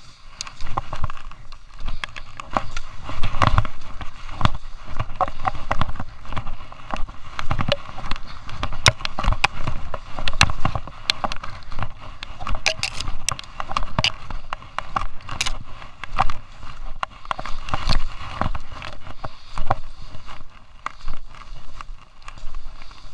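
Skis scraping and chattering over hard-packed groomed snow during a descent, surging with each turn and broken by many sharp clicks and knocks, picked up by a camera strapped to the skier's chest.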